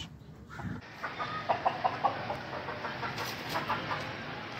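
Chickens clucking: a run of short, quick clucks starting about a second in, over a steady noisy background.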